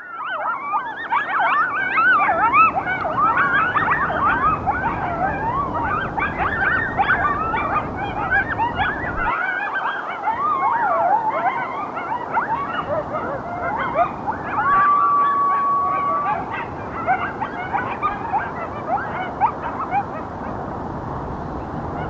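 A pack of coyotes yipping and howling together: many overlapping, wavering calls, with one long steady howl held for about a second and a half a little past the middle.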